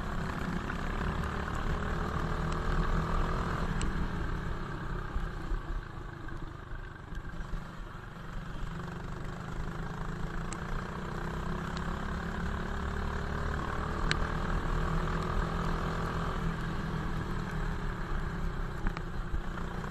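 Kart engine running hard on track, heard onboard: it eases off around the middle, its pitch falling, then picks up again as it accelerates out of the corner.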